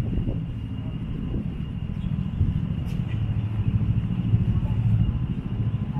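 City street ambience: a low traffic rumble that swells as a vehicle passes about halfway through.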